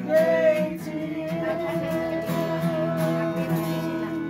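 Singing with long held notes, accompanied by an acoustic guitar being strummed.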